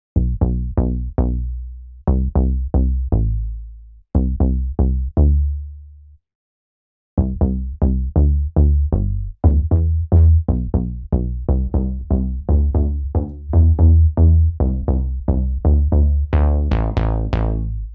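Serum software synthesizer playing the deep, warm bass preset 'Bass Aura': a rhythmic deep-house bass line of short low notes, each starting sharply and fading out. The line pauses for about a second around six seconds in, and the notes turn brighter near the end.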